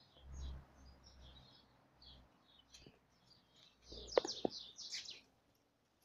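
Small birds chirping in many short high notes, busier and louder about four seconds in, where a couple of short sharp sounds also stand out.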